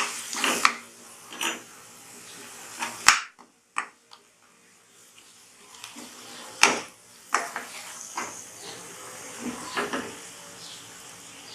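A spoon scraping and knocking against a kadhai while stirring spice masala into a paste frying in oil, with sharp clinks about three seconds in and again near seven seconds, and a short near-silent gap around four to five seconds.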